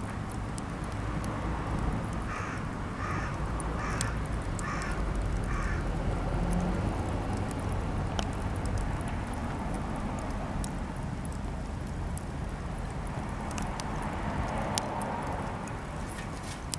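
Campfire of cedar offcuts crackling, with scattered sharp pops over a steady low rumble. About two seconds in, a bird calls five times in an even series.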